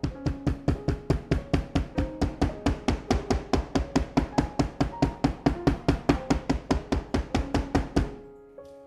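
Background music: a fast, even drum beat with a melody over it, stopping abruptly near the end and giving way to softer piano notes.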